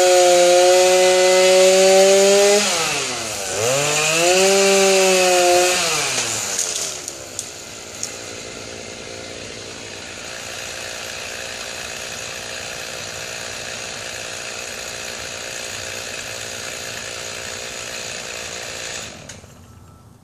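Gas chainsaw revved to full throttle twice for a few seconds each, with a short dip in revs between, as it cuts. It then drops back to idle and runs steadily until the engine stops shortly before the end.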